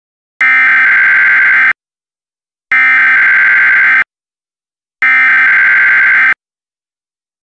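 Emergency Alert System SAME header: three identical bursts of digital data tones, each a little over a second long with about a second's gap between them. This coded header opens an EAS alert, here a tornado warning.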